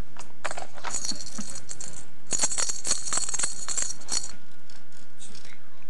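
Jingling, rattling clatter of a baby's toy being shaken, in two bursts: a short one about half a second in and a longer, louder one from about two to four seconds in.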